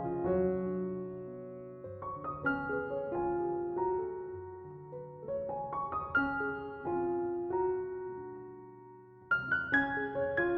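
Background piano music: a slow melody of struck notes and chords that ring and fade, growing louder near the end.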